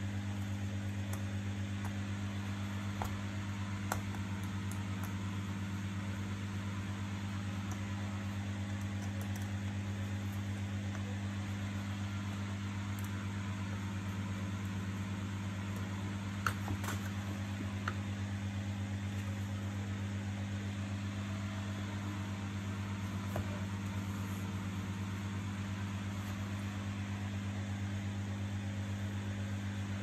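Steady low hum throughout, with a few faint clicks of small plastic parts and screws as a power-cord plug is taken apart with a screwdriver.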